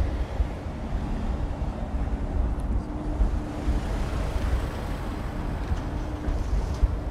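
Wind buffeting the microphone with a steady low rumble, while a car drives past on the road, its tyre noise swelling in the second half.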